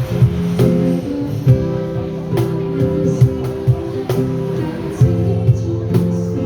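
Live band music: strummed guitar chords over a steady beat of low drum hits.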